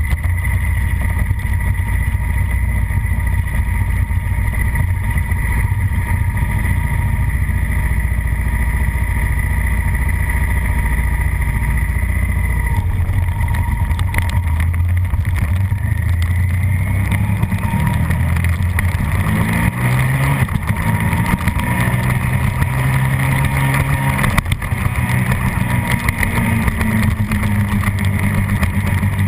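Suzuki SV650's 90-degree V-twin engine running at low revs as the motorcycle rolls slowly, heard from an onboard camera. Past the middle the revs rise and fall several times as it accelerates through the gears.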